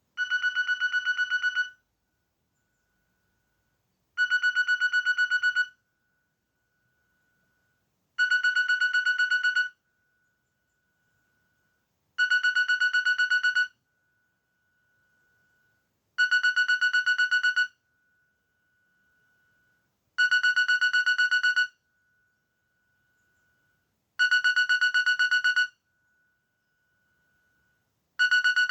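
Nokia 1680 classic mobile phone playing a ringtone through its speaker: a rapidly pulsing high tone about a second and a half long, repeating every four seconds.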